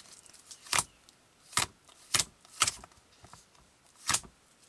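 Trading cards being put down and tapped on a playmat: five sharp taps spread over a few seconds, with a few fainter ticks between them.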